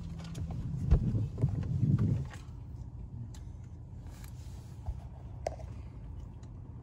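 Steady low hum of a car heard from inside the cabin, with a cluster of knocks and rustles from about one to two seconds in and a couple of faint clicks later.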